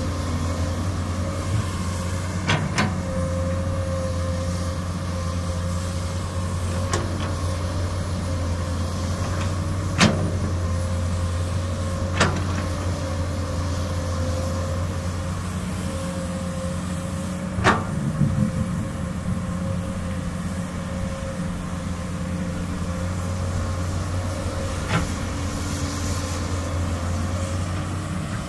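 Komatsu PC200 excavator's diesel engine running steadily under work, with a steady hydraulic whine and a handful of sharp metallic knocks spread through it.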